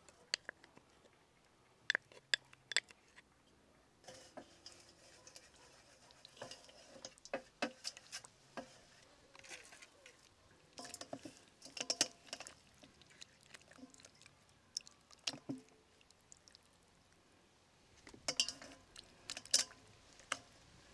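Wet squelching and sharp smacks of hands working seasoning and a tomato marinade into raw quail in a steel bowl, with a few clicks and scrapes of a wooden spoon on the bowls near the start.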